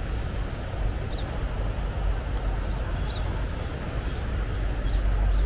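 Outdoor shoreline ambience: a steady low rumble that swells near the end, with a few faint, short bird chirps.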